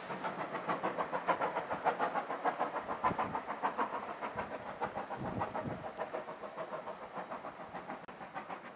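Steam locomotive running with a regular rhythm of exhaust beats, about three to four a second, slowly growing fainter.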